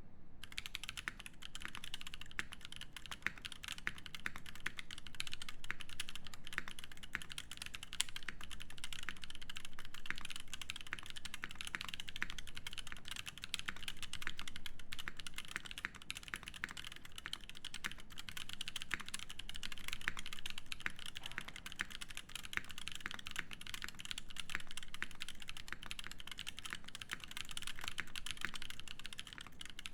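Continuous fast typing on a Haus65 mechanical keyboard with unlubed Lumia switches in an aluminium plate and GMK Shoko keycaps: a dense, unbroken run of key clacks.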